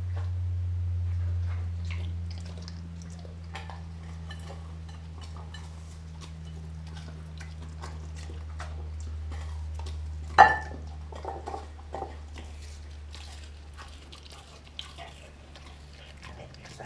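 German Shepherd–Chow Chow mix dog eating raw meat from a glass bowl: wet chewing, licking and crunching in short irregular clicks, with one sharp clink against the glass bowl about ten seconds in. A steady low hum runs underneath.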